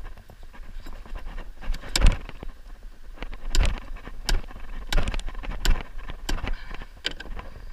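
A run of about seven sharp knocks on a wooden boat as a freshly landed salmon is handled in the landing net on the floorboards, roughly one knock every two-thirds of a second, over a low rumble.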